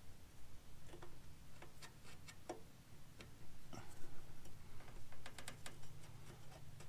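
Faint, irregular clicks and light taps from handling small parts and tools, with a short run of quick ticks near the middle, over a low steady hum.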